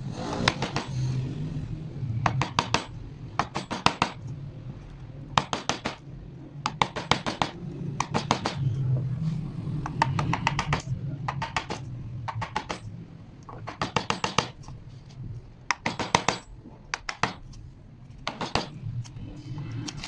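Hand tools working wood: bursts of several quick, sharp knocks and taps every second or two, over a steady low hum.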